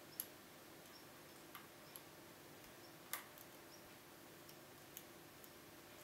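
Small metallic clicks from a lock pick working the pin tumblers of a Kaba Gege pExtra five-pin euro cylinder held under tension: about six irregular clicks, the loudest about three seconds in.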